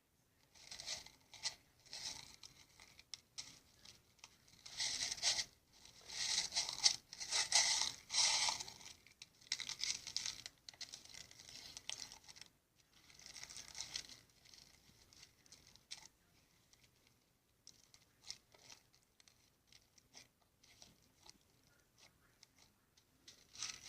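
Slime being worked by hand, squished and stretched in irregular bursts of fine crackling and popping. It is loudest in the first half and thins to sparser, fainter pops later on.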